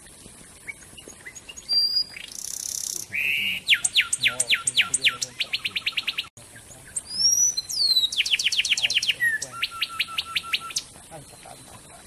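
A wren singing two phrases, each a fast run of clear notes that slide down in pitch, about ten a second. The notes quicken toward the end of each phrase, and each phrase opens with a few higher whistles.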